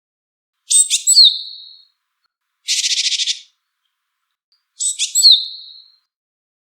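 Japanese tit calling: two alike short calls, each a quick cluster of high notes ending in a sweep that falls away, about a second in and again near the end, with a rapid buzzy rattle of pulses between them.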